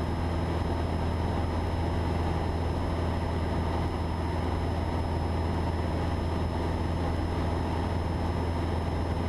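Cabin drone of a Cessna 172's piston engine and propeller running steadily in level flight, a constant low hum with no change in pitch.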